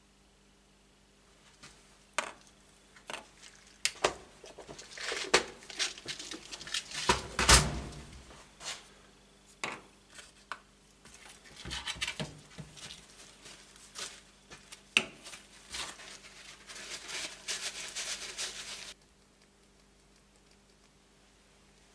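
Small parts being handled on a workbench: irregular clicks and clinks of small metal parts against a plastic parts box and the bench top, mixed with rustling of a shop rag and paper towels. The handling stops about three seconds before the end.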